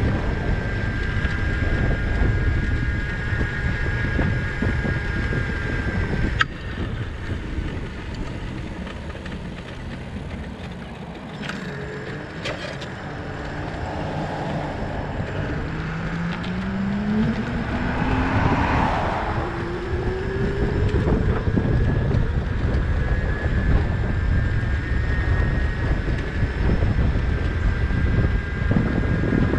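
Wind buffeting the microphone and tyre rumble from a bicycle rolling on a paved road. There are a few sharp clicks partway through, and a rising whine past the middle.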